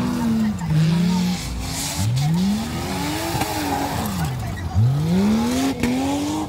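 Jeep Grand Cherokee ZJ engine revving hard while the tyres spin in loose dirt doing donuts. Its pitch climbs and falls several times, over a hiss of spraying dirt.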